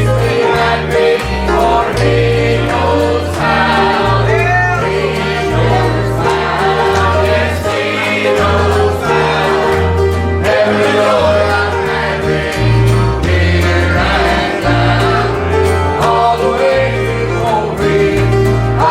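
Congregation or choir singing a gospel hymn with instrumental accompaniment and a steadily stepping bass line.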